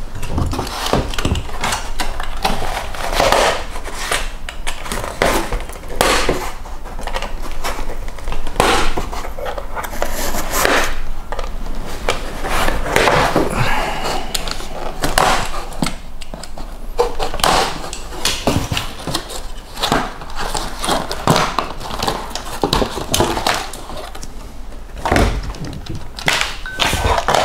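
Cardboard box being handled and opened: flaps rubbing and scraping, with irregular knocks and thunks as the box is turned over and the RC toy car is taken out. A heavier thump near the end as the car is set down on the table.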